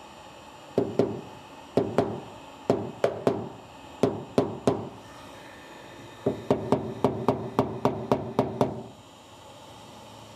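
Paintless dent repair knockdown tool tapped with a hammer against the steel body panel of a 1966 Chevrolet Impala, knocking down high spots while finishing a dent. Sharp taps come in short groups of two or three, then a quicker run of about a dozen taps before stopping near the end.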